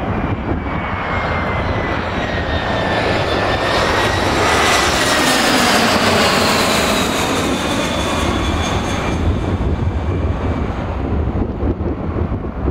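Embraer E-Jet regional airliner's turbofan engines whining as it flies low overhead on landing approach. The sound peaks about five seconds in, and the whine slides down in pitch as the jet passes. Strong wind rumbles on the microphone underneath.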